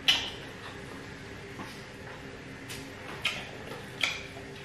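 Mouth sounds of people eating jollof rice with their hands: a handful of short wet smacks and clicks of lips and chewing, the loudest right at the start, over a faint steady hum.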